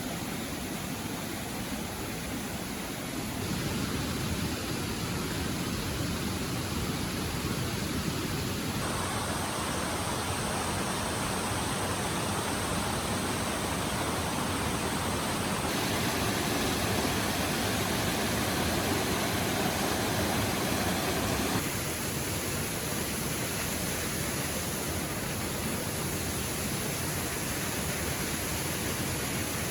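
Steady rush of flowing water from a river and waterfall, its tone and level shifting abruptly several times.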